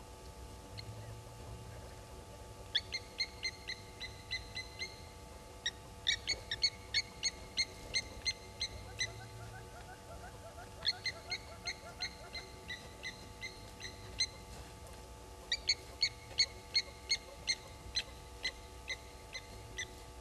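Blacksmith lapwings giving their metallic 'tink-tink' alarm calls, four runs of sharp ringing notes at about four to five a second, scolding a raptor, an African harrier hawk, on the ground.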